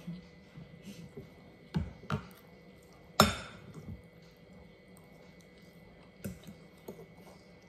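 Cutlery clinking and knocking against bowls and a plate while eating: a few scattered clinks, the loudest one ringing briefly about three seconds in, over a faint steady hum.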